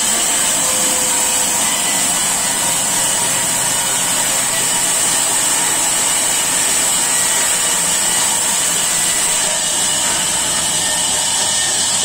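Large sawmill band saw running steadily and cutting through a log slab, with a steady high whine over the noise of the cut.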